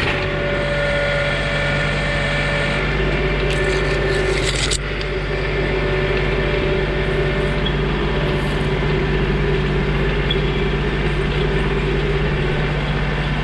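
John Deere 2032R compact tractor's three-cylinder diesel engine running steadily. A brief hiss comes about three and a half seconds in and lasts about a second.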